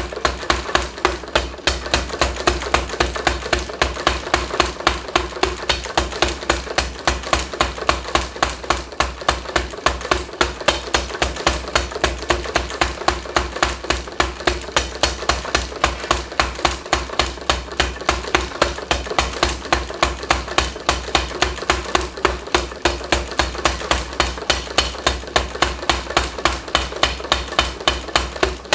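Power hammer striking hot steel in steady, rapid blows, about three to four a second, while drawing out a taper on the bar, over the low hum of its motor.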